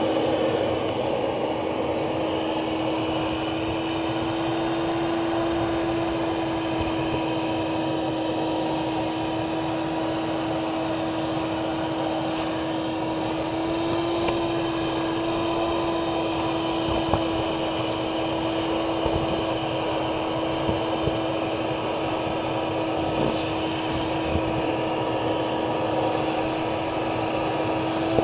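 Electric wet/dry vacuum running with a steady drone and hum, its long corrugated hose sucking algae and water out of a pond.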